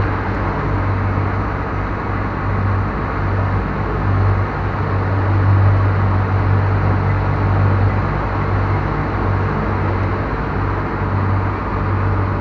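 Passenger ferry's engine running steadily under way: a low, even hum with a steady rush of wind and water over it.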